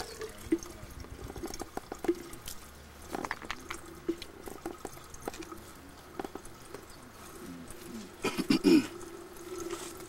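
Water draining through the small hole in a plastic basin and trickling into a plastic jug beneath it, a faint steady run with scattered drips. A brief voice sound near the end.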